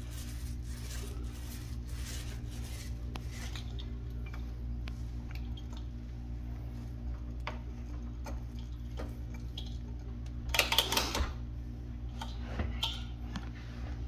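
Paint roller with a 3/8-inch nap rolling slowly over a patched drywall ceiling, a faint soft repeated swish. About ten and a half seconds in comes a short, louder scraping clatter as the roller is worked in its paint container, then a smaller one a couple of seconds later, over a steady low hum.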